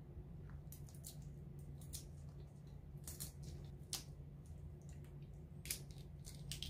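Boiled shrimp shell being peeled by hand, with scattered soft crackles and wet clicks, a few sharper ones. A low steady hum sits underneath.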